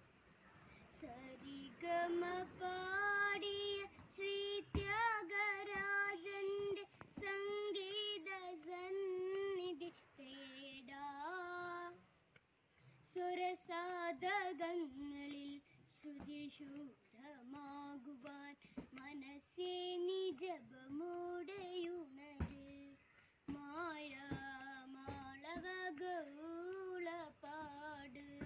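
A young boy singing solo without accompaniment, in sung phrases with vibrato separated by short breaths.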